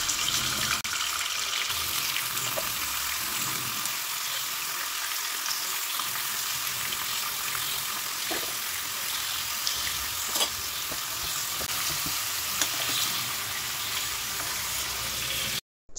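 Raw chicken pieces sizzling in hot oil in a kadai, a steady frying hiss. A few light knocks come in the second half as the pieces are stirred with a spoon.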